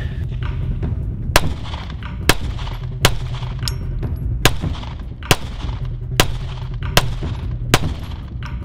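A Smith & Wesson M&P Shield 2.0 9mm pistol firing a steady string of eight shots, about one every 0.8 seconds.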